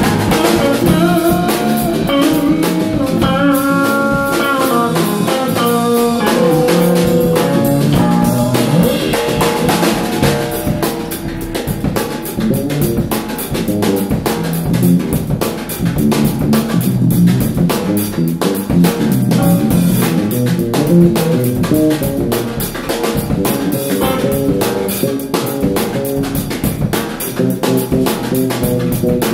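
Live jazz-funk trio of electric bass, drum kit and hollow-body electric guitar playing a steady groove. A melody line stands out over the first ten seconds or so, then the drums and bass carry the tune.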